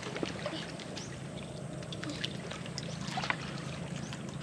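Scattered light clicks and taps of knives and hands cracking and handling sea urchin shells, over a steady low hum.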